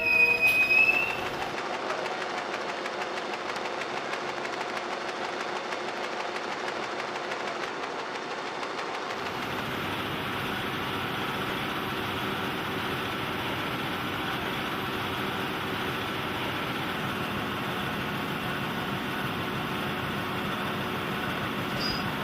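A train running, a steady rolling noise, with a short high tone and a louder moment about the first second.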